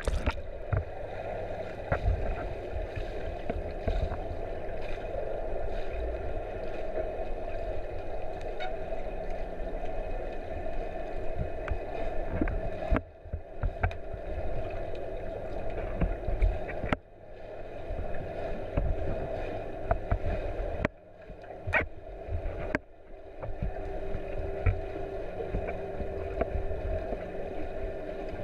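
Muffled underwater noise picked up by an action camera in its waterproof housing as a swimmer moves through pool water: a steady dull watery rush with a low rumble and scattered dull knocks. The level dips abruptly a few times.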